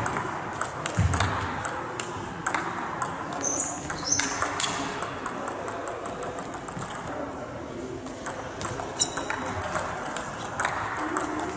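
Table tennis ball clicking sharply off rackets and the table during rallies, hits coming in quick runs with short gaps between points. A few brief high squeaks are heard about four seconds in and again about nine seconds in.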